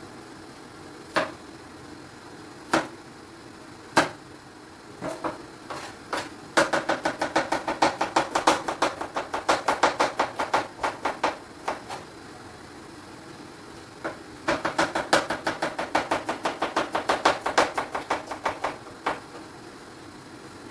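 Knife chopping on a cutting board: a few single cuts, then two long runs of quick, even strokes at about four or five a second, with a pause between them.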